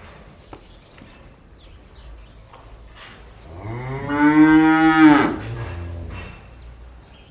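A cow mooing once: one long call of about two seconds that rises and then drops away into a lower tail, over a faint barn background with a few light clicks.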